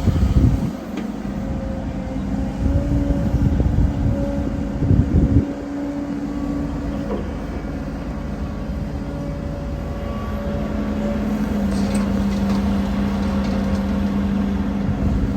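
Heavy diesel earthmoving machinery running steadily, with low rumbling surges near the start and again about five seconds in.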